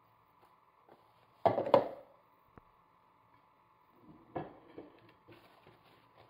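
Dishes knocking on a kitchen countertop: two sharp knocks about a second and a half in, then a softer knock a few seconds later as the glass bowl of rinsed meat is set down. After it comes the light rustle of paper napkins being handled.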